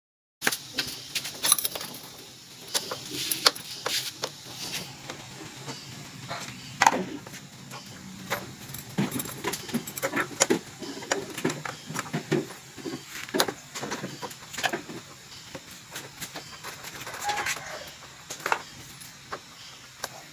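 Irregular metallic clicks, clinks and small knocks of hand work at a motorcycle's rear frame and shock-absorber mount, with one sharper knock about seven seconds in.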